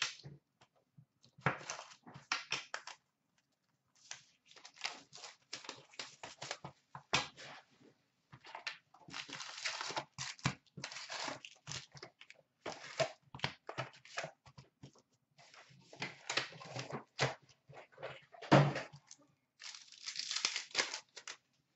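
Cardboard hockey card hobby box torn open and its foil card packs pulled out, handled and stacked: a run of short tearing, rustling and crinkling noises, with one dull thump near the end.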